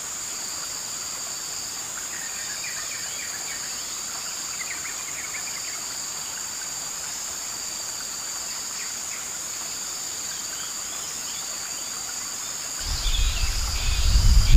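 Steady high-pitched insect drone of forest crickets or cicadas, with faint, quick bird chirps a few seconds in. Near the end a loud low rumble sets in over it.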